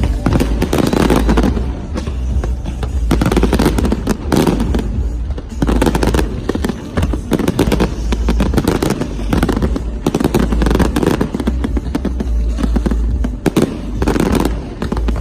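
Fireworks going off: dense, continuous crackling and popping of bursting shells over a low rumble.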